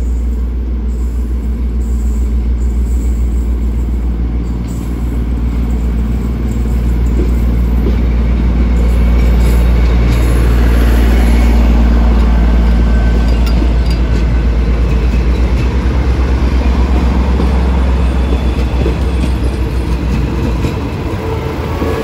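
Diesel train engine running with a steady low hum as the train moves past, growing louder to about halfway and easing off near the end.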